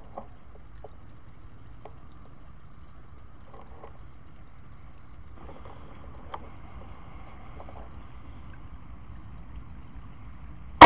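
Air rifle fired once, right at the end: a single sharp crack with a brief ring. Before it there is a steady low background rumble and a few faint handling clicks.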